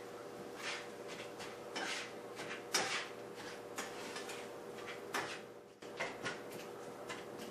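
A utensil scraping and stirring browning ground beef in a frying pan, in short irregular strokes roughly once a second, over a steady low hum.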